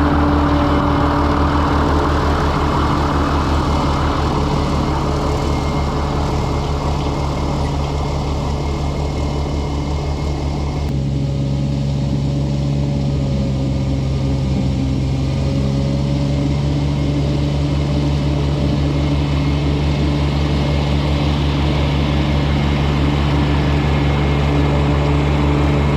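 LS MT225s compact tractor's diesel engine running steadily, with its pitch shifting about eleven seconds in.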